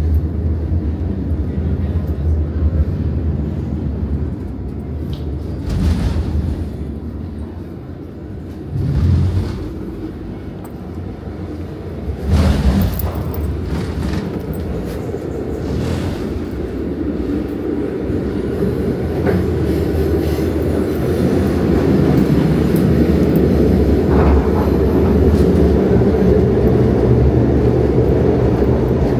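Renfe Cercanías 450 series double-decker electric train running, heard inside the carriage: a steady low rumble that grows louder in the second half, with a few short knocks and clunks along the way.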